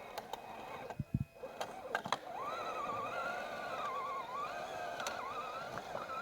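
Electric drive motor and gearbox of a 6x6 RC scale truck, a few sharp clicks and then a whine from about two seconds in, its pitch wavering up and down as the motor speeds up and slows under load.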